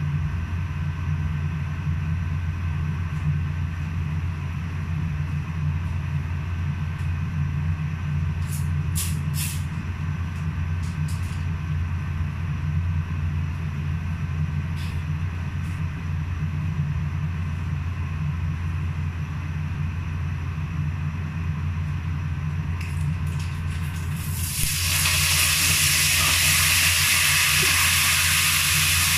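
Steady low hum of kitchen cooking appliances, with a few brief clicks around ten seconds in. About twenty-five seconds in, a loud sizzle of food cooking in a hot pan on the stove sets in and holds.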